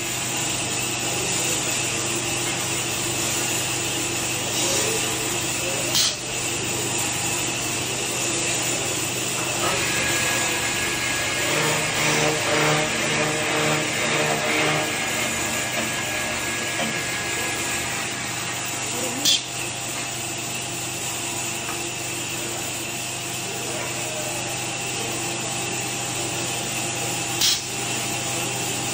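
Electric spindle-sanding machine running steadily, its abrasive wheels rubbing along a rotating turned wooden spindle over a constant motor hum. Three short sharp knocks stand out: about six seconds in, about two-thirds through, and near the end.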